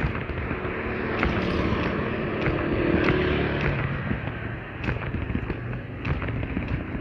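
A motor vehicle engine running past, its pitch rising and then fading about halfway through, over steady background noise with scattered sharp clicks.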